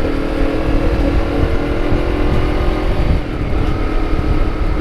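Honda CBR250RR with a KEA Speed aftermarket exhaust running at steady revs, its engine and exhaust note holding level, then changing pitch about three seconds in, over low wind rumble on the microphone.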